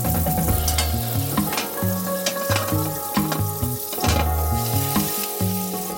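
Food frying in hot oil in a pan: a steady sizzle with frequent crackling pops, over background music with a stepping bass line.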